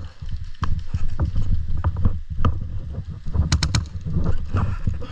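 Uneven low rumbling noise on a body-worn microphone, with a quick string of three or four sharp airsoft gun shots about three and a half seconds in.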